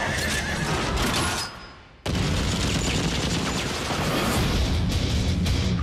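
Action-film trailer soundtrack: music mixed with booms and volleys of gunfire. It fades out and then cuts back in suddenly at full level about two seconds in.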